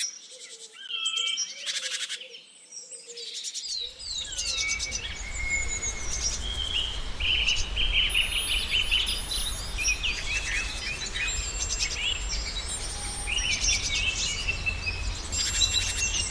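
Several wild birds chirping and singing in overlapping short calls and trills. About four seconds in, a steady low rumble and background hiss come in under the birds and carry on.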